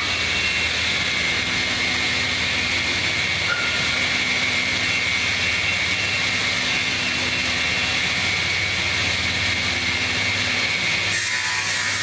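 Multi-blade rip saw running steadily after start-up, its motors and circular blades giving a steady high whine over a low hum. About eleven seconds in the lower hum drops away and the sound changes.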